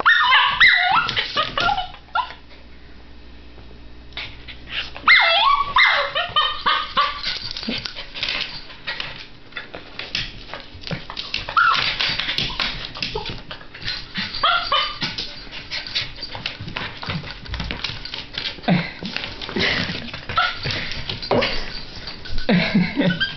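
Miniature schnauzer puppy whining, yipping and barking in bursts while begging for food it cannot reach. The calls pause for about two seconds near the start.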